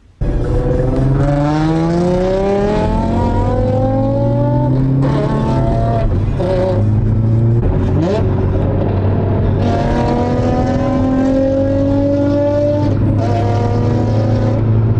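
Nissan 350Z's 3.5-litre V6 with an aftermarket exhaust, accelerating hard through the gears. The pitch climbs steadily, drops at a shift about five seconds in, climbs again, and rises in a long pull from about ten seconds that breaks for another shift near thirteen seconds.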